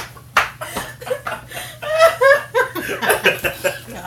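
A man and a woman laughing in short, broken fits that swell about halfway through.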